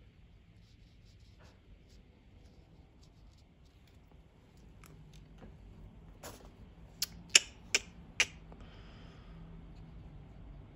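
Quiet room with a quick run of five sharp clicks about six to eight seconds in. Shortly after comes the faint soft brushing of a watercolor brush on cold press paper.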